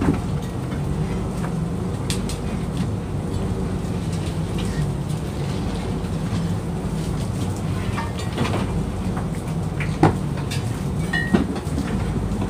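Fishing boat's motor running with a steady drone, with scattered knocks and clicks from the net being hauled and handled on deck. The sharpest knock comes about ten seconds in.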